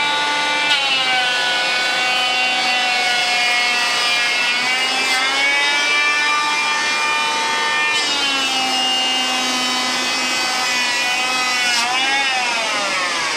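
Electric hand planer running and shaving a wooden beam in repeated passes, its whine sagging in pitch each time the blades bite and recovering between passes. The Bosch AdvancedVac 20 workshop vacuum runs along with it, switched on automatically by the planer and drawing off the shavings through the hose.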